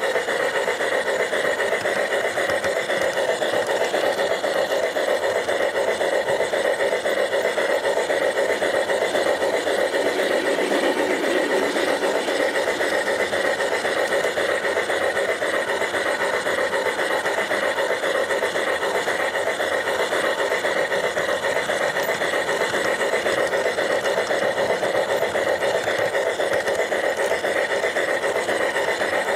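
Steady whirring hum of a G-scale model locomotive's electric motor and gears, with its wheels rolling along the track, heard close up from a camera riding on the train.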